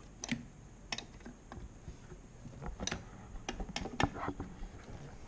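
Irregular light metallic clicks and taps of a 12 mm wrench working the brake line fittings on the master cylinder, with a little rustling handling about four seconds in.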